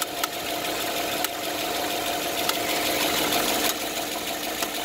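GM 6.2-litre V8 idling at operating temperature, with a few sharp, irregularly spaced pops that seem to come from the water pump. The cause was traced to a head gasket installed backwards, which blocks coolant flow and creates hot pockets in the engine.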